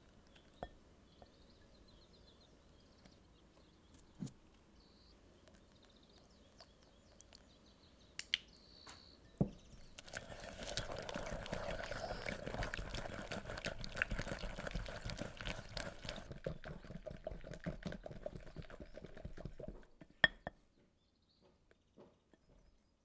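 A silicone-coated balloon whisk beating egg into creamed butter and sugar in a glass bowl: a quick, steady run of wet strokes and scrapes starts about ten seconds in and stops about ten seconds later. Before it, beaten egg being poured into the bowl is faint, with a few light knocks.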